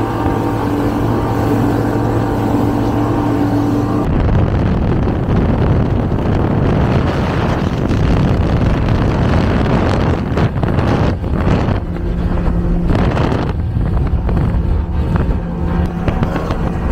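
Speedboat engines running at high speed on open water, with wind buffeting the microphone. A steady engine note gives way abruptly about four seconds in to a rougher, noisier rush, and a steady engine note comes back later on.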